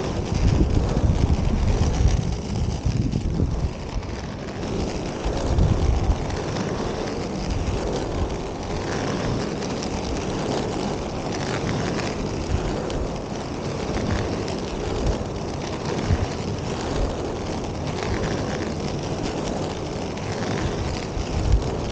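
Inline skate wheels rolling steadily on asphalt, with wind buffeting the microphone, heaviest in the first few seconds. A faint pulse comes about once a second.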